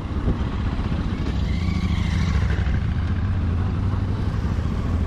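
Bajaj Pulsar NS200's single-cylinder engine running steadily at low revs as the motorcycle rolls slowly.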